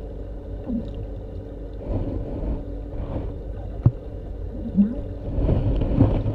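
Aquarium tank ambience: a steady low hum and water wash, with a few short gurgles and one sharp click about four seconds in, growing louder near the end.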